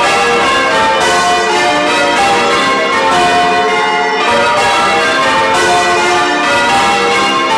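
Church bells being rung in changes: a steady, loud stream of strokes, one bell after another, the ring of each overlapping the next.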